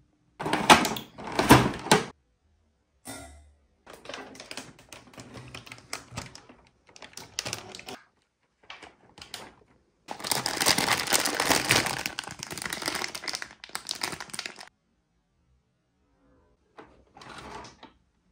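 Packaging being handled: a cardboard box and clear plastic wrap and a blister tray rustled and crinkled in irregular bursts. Two loud bursts come at the start, and a long stretch of crinkling plastic comes about ten seconds in.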